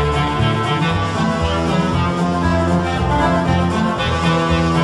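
Instrumental music: held notes over a bass line that moves from note to note.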